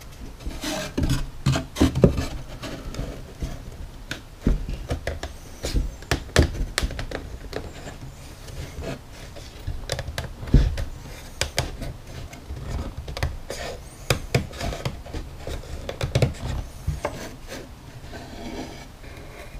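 Plywood panels being pressed and slid into a plywood console frame for a test fit: irregular wooden knocks and taps with scraping and rubbing of wood on wood. The sharpest knocks come about two seconds in and again about ten and a half seconds in.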